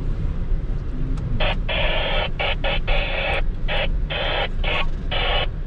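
Radio static hissing in irregular bursts that cut sharply on and off from about a second and a half in, over the low steady rumble of the Audi Q8 crawling over rough dirt, heard inside the cabin.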